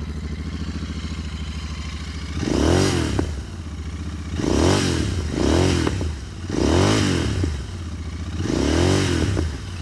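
Royal Enfield Continental GT650's parallel-twin engine, still cold, idling and then blipped five times, each rev rising and dropping back to idle, through Gursewak stainless slip-on mufflers with the dB-killer baffles fitted. There is a little popping at the top of the revs.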